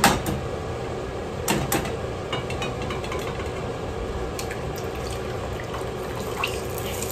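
An egg frying in hot oil in a small frying pan, sizzling steadily. There are a couple of sharp clicks about a second and a half in as it goes into the pan.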